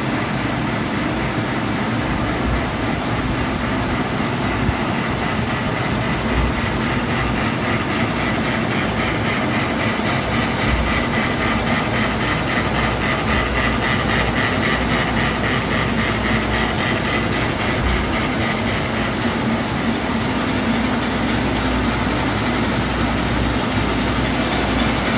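OPP film printing press running at a steady speed: its rollers and drive turn with a continuous mechanical rumble and an even hum.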